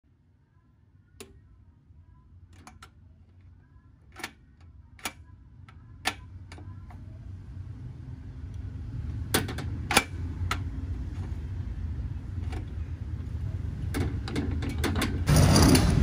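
Steel slide-bolt gate latch being worked: scattered sharp metal clicks and clacks, with a quicker run of them near the end, over a low rumble that grows steadily louder.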